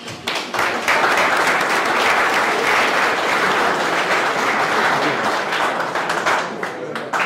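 Audience applauding: many hands clapping, swelling up within the first second, holding steady and thinning out near the end.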